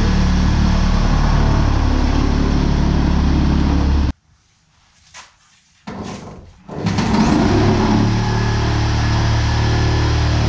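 Steady machine hum with a thin high whine. It cuts out abruptly about four seconds in, then starts again about two seconds later, the whine rising as it spins back up to speed.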